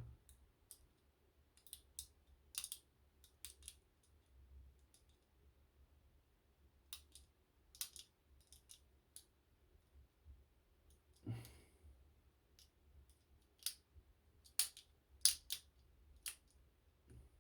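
Irregular small metallic clicks and ticks of a lock pick working the levers of a cheap Silverline four-lever lock, with a few sharper clicks near the end.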